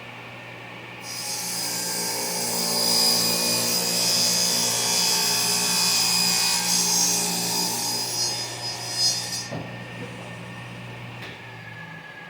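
Table saw cutting through a wooden cabinet door. Over its steady motor hum, a loud high hiss of the blade in the wood starts about a second in and stops about nine seconds in. A couple of knocks follow, and the motor hum dies away near the end.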